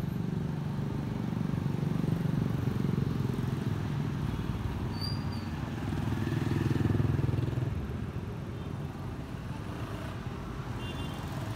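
Street traffic: engines of passing motor vehicles, swelling early on and again, loudest, about two-thirds of the way through.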